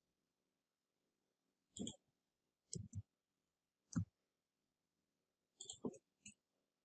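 Faint keyboard and mouse clicks over near silence: a few scattered clicks, then a quick cluster of them near the end.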